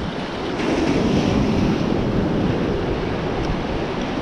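Ocean surf washing and churning close around a wader standing in the waves, with wind rumbling on the microphone. The wash swells a little louder about half a second in and stays steady.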